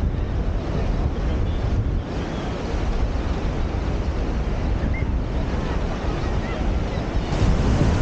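Ocean surf breaking and washing up the beach, mixed with heavy wind buffeting the microphone as a low rumble; the noise swells louder near the end.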